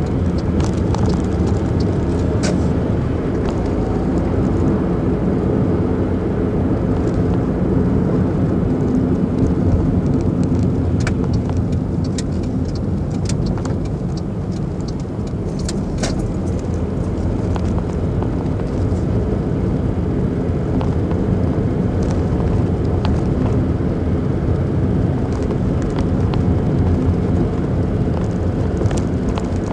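Car being driven at town speed, heard from inside the cabin: a steady engine and tyre rumble with a few brief faint ticks.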